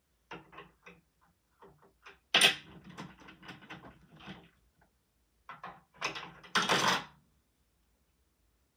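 Plastic Lego candy-machine mechanism clicking and clacking as it is worked by hand. There are two louder rattling bursts, one about two and a half seconds in and one about six and a half seconds in.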